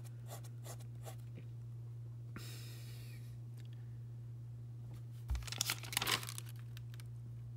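Paper handling: a spiral notebook page is lifted and flipped, giving a short hiss of sliding paper and then a cluster of crinkling, crackling clicks near the end, over a steady low hum.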